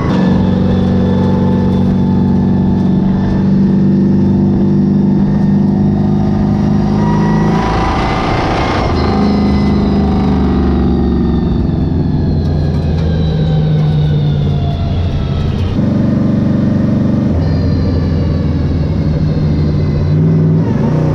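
1968 Dodge Charger stock car's engine running loud under way. Its pitch holds, then changes several times: a slow fall through the middle and a few sudden steps up and down in the second half.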